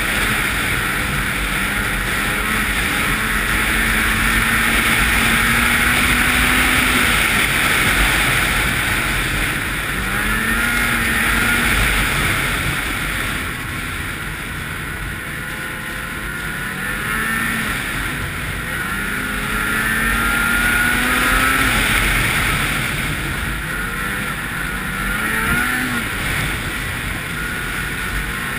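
Ski-Doo 800 snowmobile's two-stroke twin engine running while riding, its note rising and falling several times as the throttle is eased and opened again. A steady rushing noise runs underneath.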